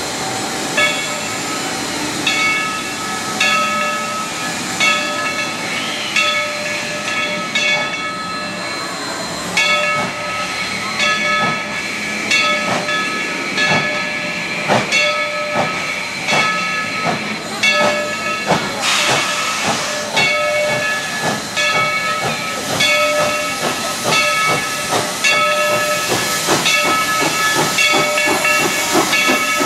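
Coal-fired narrow-gauge steam locomotive No. 70 "Cinderella", a Baldwin 2-8-2, hissing steam while its bell rings about once a second. Exhaust chuffs come in from about ten seconds in as it starts to move.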